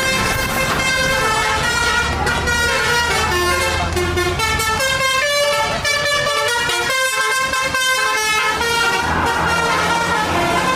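Basuri telolet multi-tone bus air horn playing a tune, its notes stepping from pitch to pitch, over a steady low hum from the bus.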